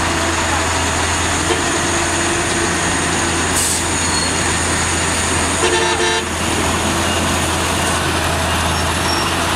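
FAW flatbed truck's heavy diesel engine running steadily as the truck struggles to make the steep hairpin climb. A vehicle horn gives one short toot about six seconds in.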